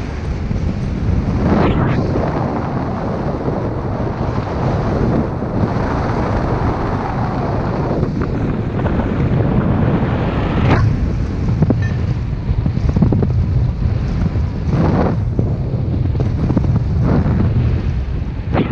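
Wind rushing over the microphone of a paraglider pilot in flight: a steady low rush of airflow, with a few short, sharper gusts.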